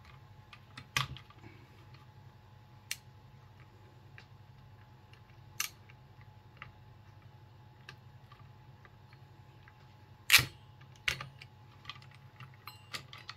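Sparse clicks and knocks from working a CPU heat sink and its clips off a motherboard, with the sharpest knock about ten seconds in, over a low steady hum.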